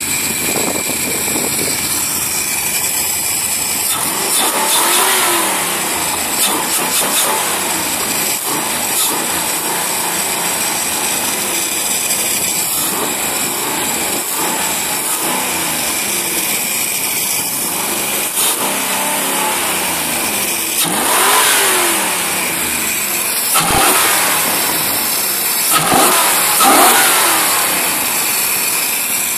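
Marlin Roadster's V8 engine running steadily, blipped up and back down a few times, mostly in the later part, with one sharp knock in between. It runs without the whine that a disconnected pipe had been causing.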